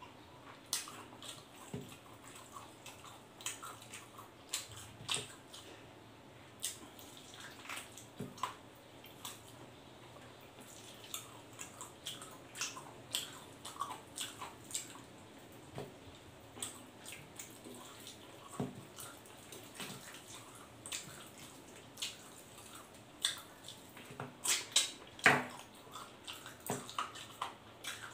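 Close-up wet eating sounds as roast pork trotter and rice are eaten by hand: chewing and lip smacking heard as a scatter of short, wet clicks, loudest in a cluster near the end.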